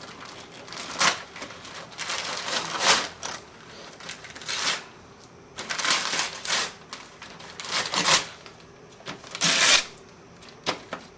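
Wrapping paper being ripped and pulled off a large gift box by hand, in about eight irregular tearing bursts with short pauses between.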